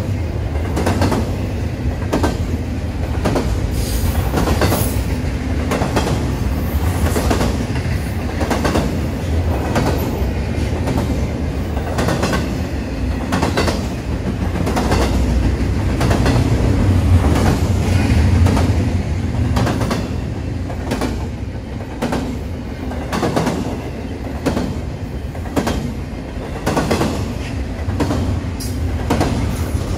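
Railroad cars rolling along the track, the wheels clicking over rail joints in a steady rhythm of about one to two clicks a second over a low rumble.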